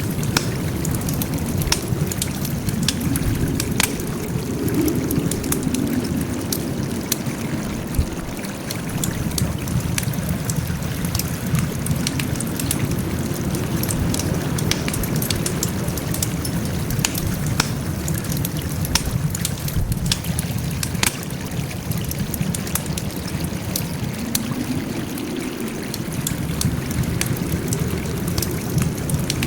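Wood fire burning with a steady low rush under frequent sharp crackles and pops.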